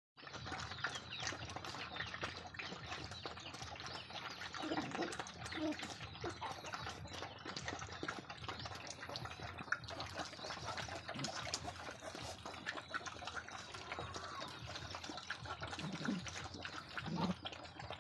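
Many dogs and puppies lapping and slurping watery rice feed from a shared trough: a dense, continuous stream of wet licking and smacking sounds, with a couple of brief low sounds about five seconds in and near the end.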